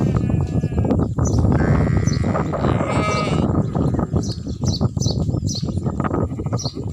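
Sheep bleating: two long, quavering bleats in the first half, over a dense background, with short high chirps through the second half.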